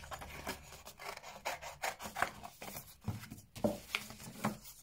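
Scissors cutting through thin cereal-box cardboard: a run of irregular short snips and scraping crunches, a few a second. In the second half, a few soft knocks as the cut cardboard is handled and laid on the desk.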